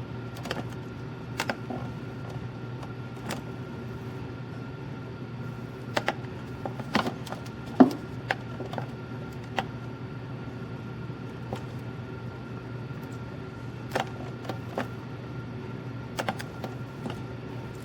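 Scattered clicks and knocks from handling a Keurig Mini K single-serve coffee maker, over a steady low hum. The sharpest click comes about halfway through.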